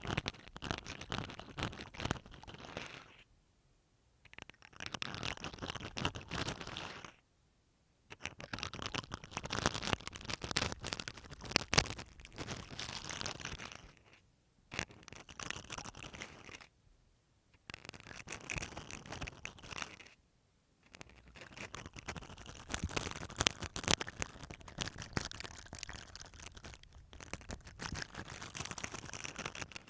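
Toothbrush bristles scrubbing over masking tape stuck on a microphone, a close, scratchy crinkling in bouts of several seconds with brief pauses between them.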